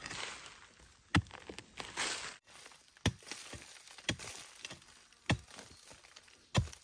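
A long-handled digging tool striking into soil and the base of a bamboo shoot: five sharp blows roughly a second apart, with dry leaves and earth rustling and scraping between them.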